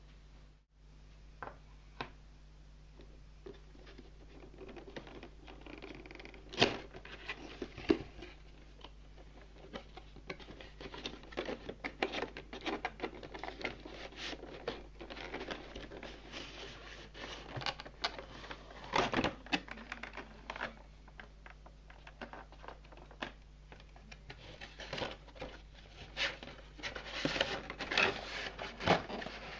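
Cardboard box being opened and a clear plastic packaging tray handled, giving irregular rustling and crinkling with scattered sharp clicks, busier in the second half.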